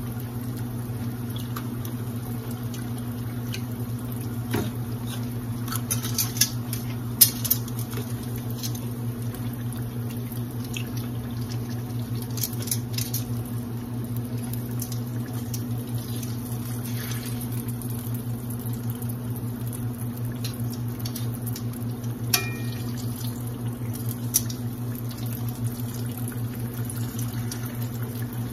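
Battered onion rings frying in hot oil in a cast-iron skillet: a steady sizzle with scattered pops and crackles, and now and then a sharp click of metal tongs against the pan. A steady low hum runs underneath.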